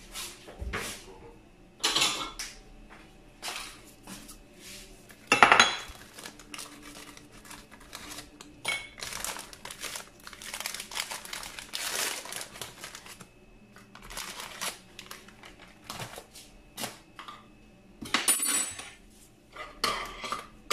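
Irregular clinks and knocks of a spoon and biscuits against a plate and a glass baking dish, with crinkling of a plastic biscuit wrapper being opened. The loudest knock comes about five seconds in.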